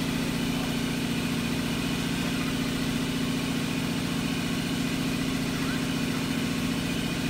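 Steady machine hum with a low drone that holds unchanged throughout, from machinery running in a tire shop.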